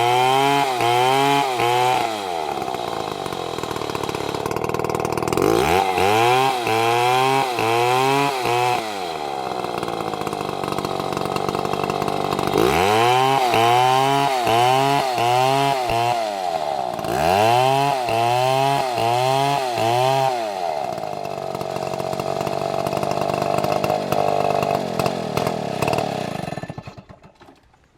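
Chainsaw cutting a dead palm trunk. Its engine is revved up and down about twice a second in several runs, between stretches of steady high revs. It cuts off near the end.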